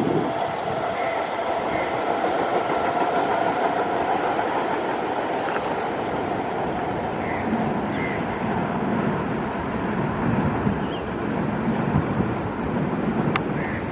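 North-South Line MRT train running past on an elevated viaduct: a steady rolling rumble of wheels on track, with a steady whine that fades out about four or five seconds in.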